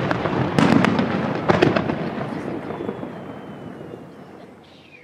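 Fireworks going off: two volleys of sharp bangs in the first two seconds, each followed by a rumbling echo that slowly fades out. A short falling whistle comes near the end.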